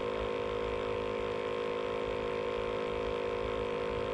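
A steady hum of several held tones, with a low uneven rumble beneath it.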